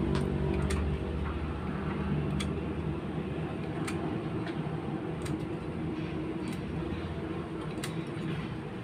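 Caulking gun clicking every second or so as its trigger is pumped to squeeze silicone sealant onto a fan clutch housing. A steady low rumble runs underneath.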